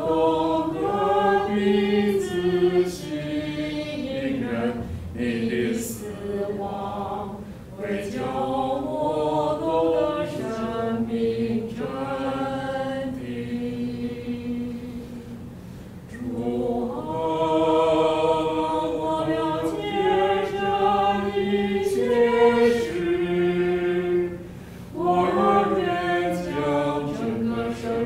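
A small congregation singing a hymn together, in long held phrases with brief pauses between them.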